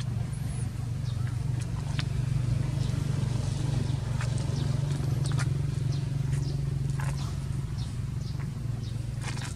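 A steady low hum that holds level throughout, with scattered faint clicks and a brief high chirp about half a second in.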